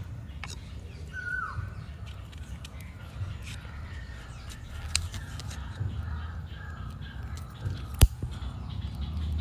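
Forest ambience with a steady low rumble. A bird gives one short call about a second in, a held note that drops at the end. A few light knocks follow, the loudest a sharp one about eight seconds in as a split coconut half is set down on the ground.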